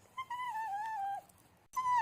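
A dog whining to seek attention: one high whine about a second long, sagging slightly in pitch, then another starting near the end.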